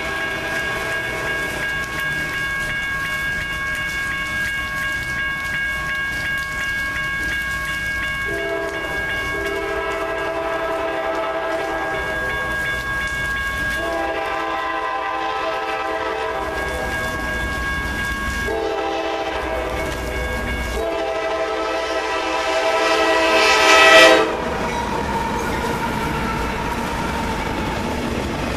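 A CSX freight locomotive's air horn sounds the grade-crossing signal as the train approaches: two long blasts, a short one and a final long blast that grows louder and cuts off about 24 seconds in. The train's rumble and wheel clatter run underneath and carry on as it passes.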